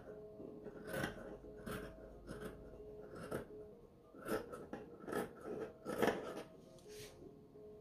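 Large fabric shears snipping through thin sheer fabric, blade against the table: a string of short crisp cuts, roughly one a second.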